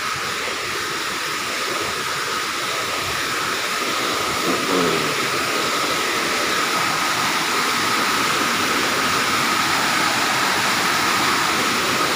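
Sanghagara waterfall rushing: a steady roar of falling water that grows a little louder.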